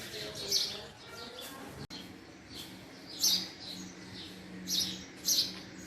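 Male house sparrow chirping: short, sharp chirps at irregular intervals, about half a dozen, with the loudest ones about three and five seconds in.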